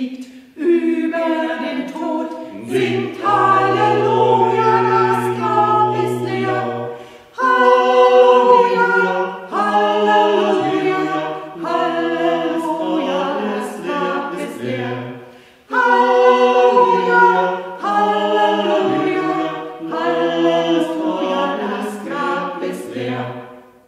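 A small mixed church choir of women's voices and a man's voice singing a cheerful Easter song a cappella, in phrases with short breaths between them. The song's last phrase dies away near the end.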